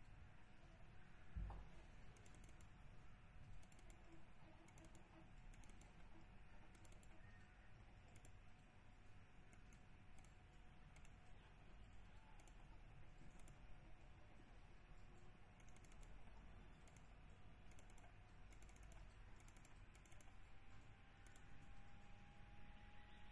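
Faint, irregular clicking of a computer keyboard and mouse over a faint steady hum, with one soft thump about a second and a half in.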